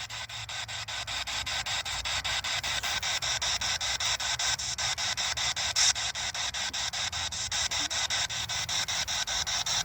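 Spirit box (ghost box) sweeping through radio frequencies: a rapid, even chop of radio static, several short bursts a second.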